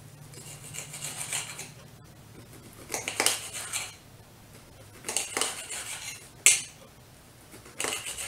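Serrated knife sawing through small steaks on a glass plate, the blade scraping and clinking against the glass in four short bouts of strokes, with one sharp clink a little past the middle.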